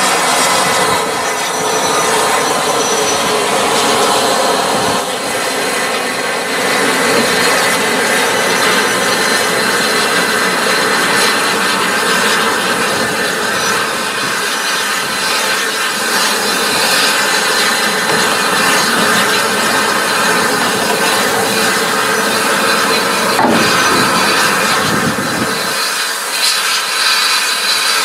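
Steam-hauled train running by, a loud steady rush of rolling noise from carriage wheels on the rails, with a falling tone about 23 seconds in.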